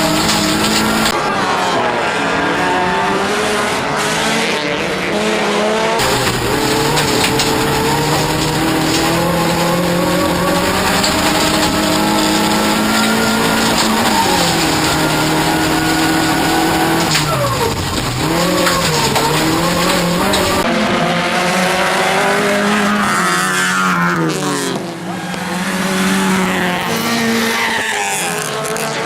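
Toyota Corolla offroad race car at full racing pace, its engine note rising and falling with each gear change and throttle lift, over loud tyre and surface noise. About two-thirds of the way through the revs drop steeply and climb again as the car slows and pulls away.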